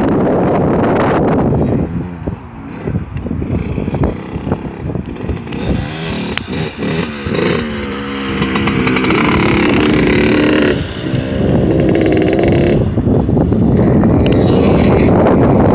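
Suzuki RM125 two-stroke dirt bike engine revving, its pitch rising and falling as it rides past. Heavy wind buffets the microphone at the start and again through the second half.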